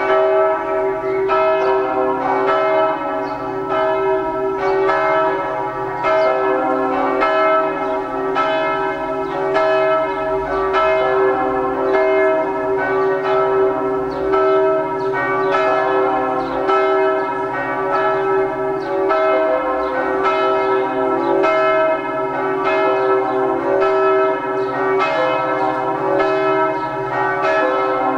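Several church bells ringing together in a continuous peal. Strike follows strike in close succession over a lasting ringing hum.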